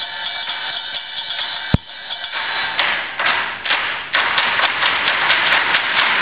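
Percussionists playing a tabletop piece: taps and rubbing on the table with one sharp thud about two seconds in. The playing grows busier and louder in the second half.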